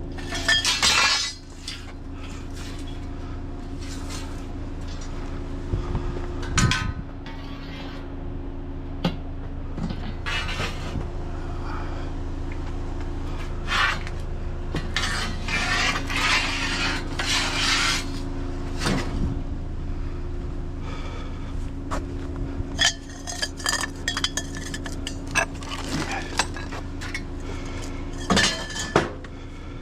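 Scrap metal being handled and secured for hauling: irregular metallic clinks, clanks and knocks throughout, over a steady hum.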